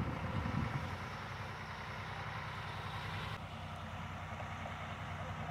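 Medium-duty flatbed truck's engine running steadily at low revs as the truck drives slowly in, with a couple of brief low thumps right at the start.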